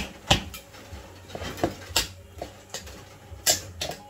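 A kitchen knife knocking and prying at the top of a tin of Guinness: a few sharp metal taps at irregular intervals, the loudest near the start and about three and a half seconds in.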